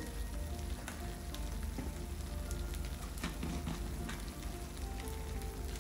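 Onion-tomato paste frying in oil in a pan: a steady sizzle with scattered small crackles.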